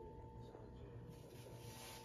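Near silence: faint room tone with a steady thin hum.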